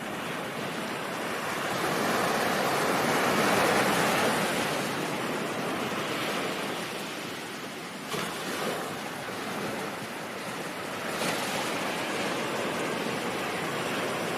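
Ocean waves washing on a shore: a steady hiss of surf that swells to its loudest about four seconds in, then ebbs, with smaller surges of breaking water later.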